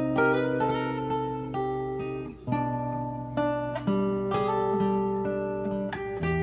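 Yamaha SLG110N nylon-string silent guitar, played fingerstyle: a plucked melody over sustained bass notes, with a brief dip about two and a half seconds in before the next chord.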